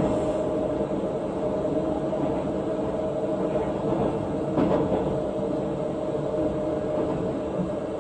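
Busan Metro Line 1 subway train running between stations: a steady rumble of wheels on rail with a steady humming tone over it, and a brief louder rattle about four and a half seconds in.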